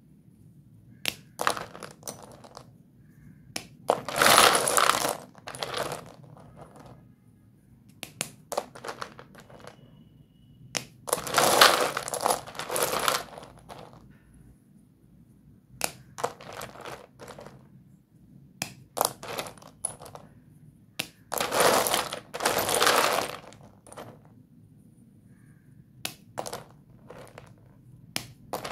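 Short pieces of Doms white dustless chalk clattering and crunching against each other as hands dig through and squeeze a basin full of them, in three longer crunchy spells. Between the spells come single sharp cracks of chalk sticks snapping.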